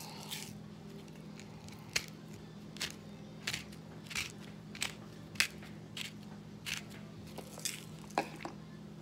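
Pepper grinder twisted by hand, giving a dozen or so short, dry crunching grinding strokes at irregular intervals as the peppercorns are cracked.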